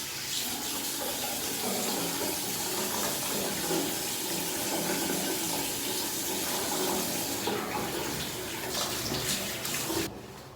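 Water running from a tap in a steady stream, shut off suddenly near the end.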